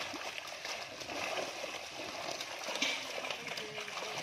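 Many fish crowded inside a drawn fishing net, thrashing at the surface: a continuous, dense splashing of shallow water.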